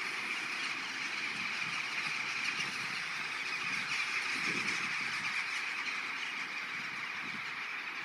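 A huge flock of rooks and jackdaws calling all at once, a dense unbroken din that swells a little around the middle.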